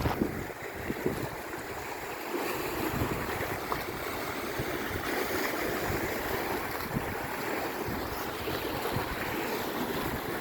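Sea waves washing ashore in a steady wash, with wind buffeting the microphone in low rumbles.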